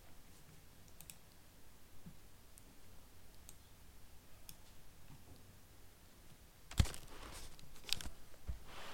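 Computer mouse clicks: a few faint, scattered clicks, then louder ones near the end.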